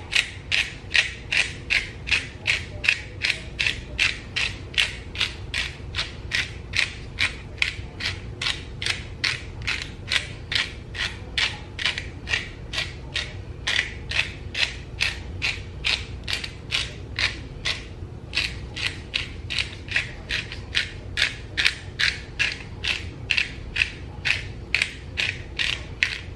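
Hand-twisted black pepper grinder grinding peppercorns: a steady run of ratcheting grinding strokes, about two or three a second.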